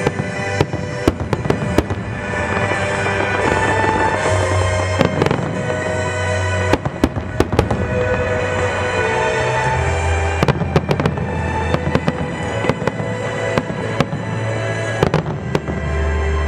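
Fireworks exploding in many sharp, irregular bangs, with music playing underneath.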